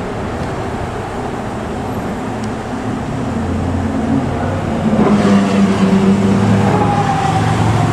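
Road traffic: passing vehicles' engine and tyre noise, growing louder about five seconds in as an engine draws near.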